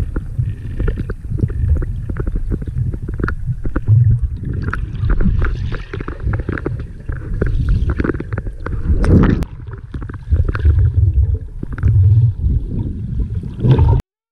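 Muffled underwater rumble and gurgle of water moving around a submerged camera, with many small clicks and crackles throughout; it cuts off suddenly near the end.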